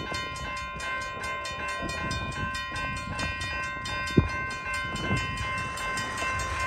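Railroad grade-crossing bell ringing at a steady fast rate, about four strokes a second, with the gates down, over a low rumble. A single sharp thump about four seconds in.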